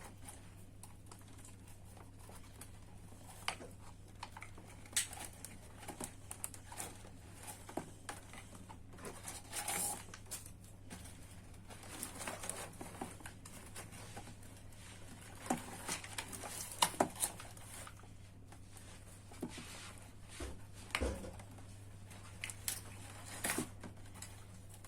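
Plastic toy packaging being handled as tape is peeled off and ties are untwisted: scattered crinkles, rustles and small clicks over a steady low hum.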